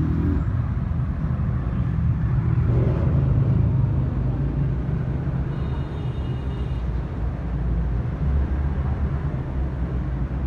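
Street-market ambience dominated by a steady low engine-like rumble, with a brief high-pitched tone about six seconds in.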